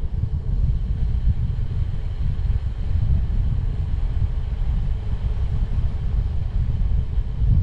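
Wind buffeting the microphone while cycling: a loud, uneven low rumble.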